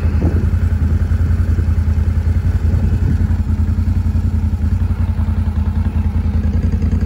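ATV engine running steadily.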